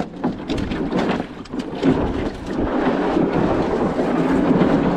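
Wind buffeting the microphone over water running through rocky shallows. There are a few light knocks in the first two seconds, then a steady rush of water and wind.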